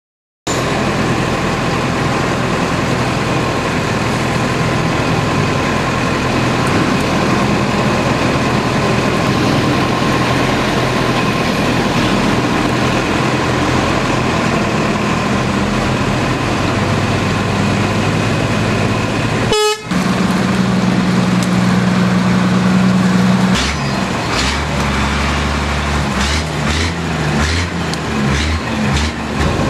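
Road traffic: a loud, steady rush of vehicle noise, broken briefly just before the middle, then a steady low horn-like tone held for about four seconds, followed by uneven rumbling of passing vehicles.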